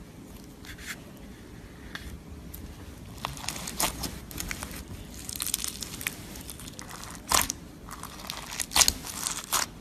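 Slime being squeezed and worked by hand, giving off scattered clicks and crackles that grow denser after about three seconds, with a couple of louder pops near the end.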